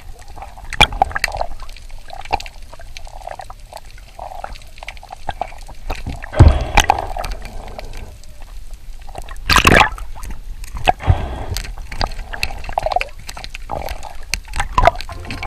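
Underwater water noise picked up by a submerged camera: sloshing and bubbling with many scattered sharp clicks, and two louder bubbling rushes about six and a half and nine and a half seconds in.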